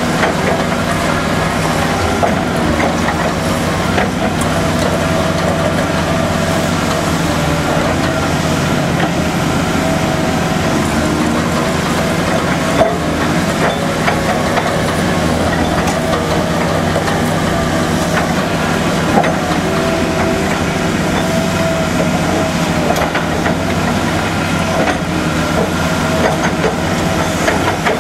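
Mori M60 foundation drill rig running steadily as it works its auger, its engine and drive making a loud, even mechanical sound, with a couple of sharp knocks partway through.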